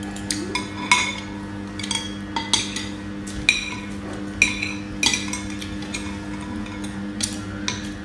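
Metal spoons and forks clinking and scraping against ceramic bowls and plates while eating: about a dozen irregular sharp clinks, each with a brief ring, over a steady low hum.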